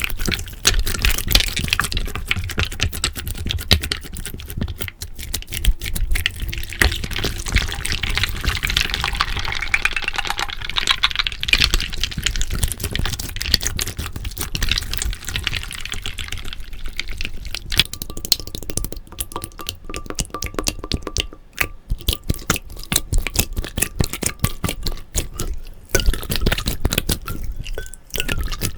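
Slime being squished, stretched and poured, with a dense run of wet, sticky clicks and crackles.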